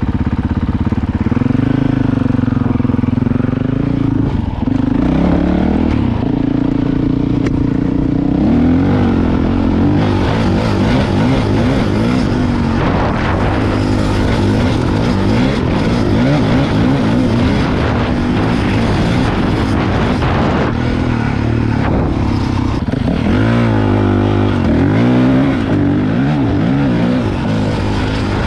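Dirt bike engine running under load while riding, its pitch rising and falling with the throttle and gear changes, with brief dips about four seconds in and again near the end.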